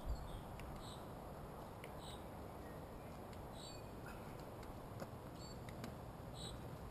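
Faint, short, high-pitched chirps from a small bird, repeated every second or so over a quiet woodland background hiss, with a small thump right at the start.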